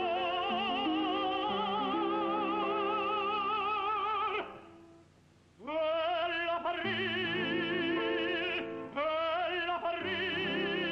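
Operatic tenor singing long held notes with vibrato in an Italian art song, over piano accompaniment. Both break off for about a second near the middle, then resume.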